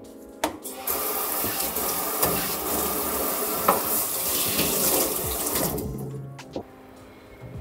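Water from a faucet's spray head splashing onto a wet sharpening stone. It starts just after a knock about half a second in, runs steadily for about five seconds, then tapers off.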